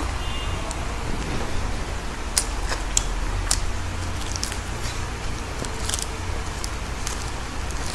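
Crisp, sharp crunches of a fresh green lettuce leaf being bitten and chewed close to the microphone, in two clusters about two and six seconds in. A steady low hum runs underneath.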